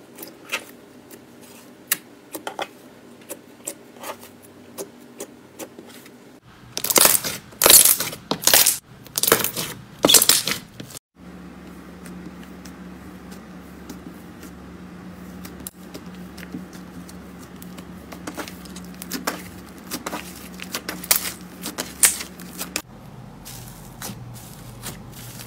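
Hands squishing and pressing slime: a run of sticky clicks and pops, then a loud burst of crunchy crackling, then softer scattered clicks from pressing thick slime, over a faint steady hum.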